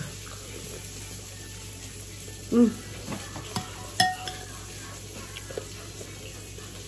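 A metal spoon clinks against a plate twice, about three and a half and four seconds in, the second clink ringing briefly, over a steady faint hiss.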